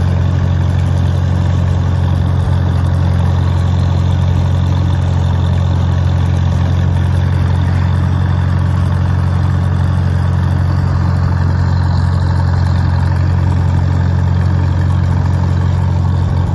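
1950 Farmall M tractor's four-cylinder engine running at a steady speed as the tractor drives along, heard close up from the driver's seat behind the exhaust stack.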